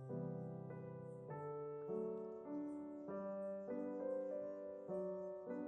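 Soft background piano music: a gentle melody of sustained notes changing about every half second to a second.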